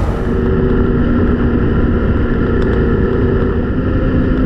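Motorcycle engine running steadily at road speed, heard from a camera on the bike, with a steady rumble of wind and road noise.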